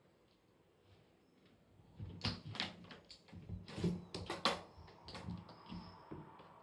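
A quick series of light knocks and clicks, a handful of sharper ones together, then a few fainter taps.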